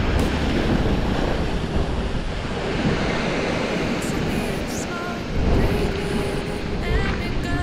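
Sea surf washing over the rocks, with wind buffeting the microphone.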